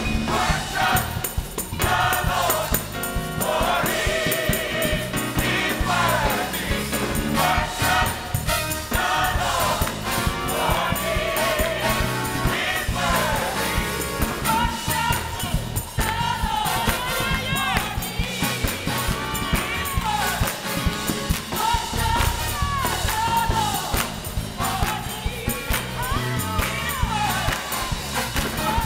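A gospel choir singing together with a live band of keyboards, guitar and drums.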